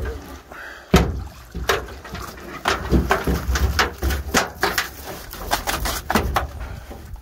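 A gill net and a large silver carp tangled in it being hauled over a metal boat's gunwale. There is a quick run of sharp knocks and thumps against the hull, the loudest about a second in.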